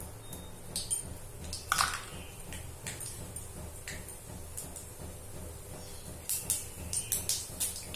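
Oil crackling and spluttering in a kadai as tempering frys with a dried red chilli, with scattered sharp pops that come thicker and louder in the last two seconds.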